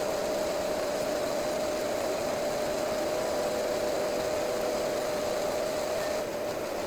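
Mini lathe running under power while turning down the outside diameter of a steel part, a steady machine whine with an even hiss of noise over it.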